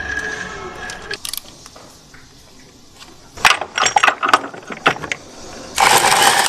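Metal clinks and rattles as a new timing chain and tools are handled on a Volkswagen 1.8 engine during installation. A clustered run of clatters comes near the middle, and a loud, steady burst of noise starts near the end and runs on.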